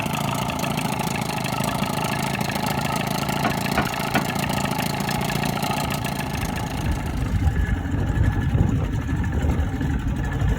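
A 1985 Evinrude 25 hp two-stroke outboard motor, warmed up, running steadily on its newly replaced fuel pump. About seven seconds in the sound turns lower and a little louder as the boat pulls away.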